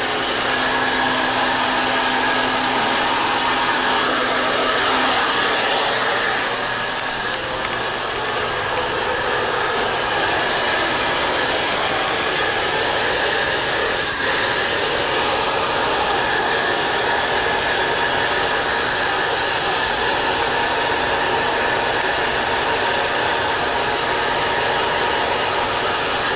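Handheld blow dryer running steadily, blowing air into a toy poodle's coat to fluff-dry it. A low hum under the rush of air fades out a few seconds in.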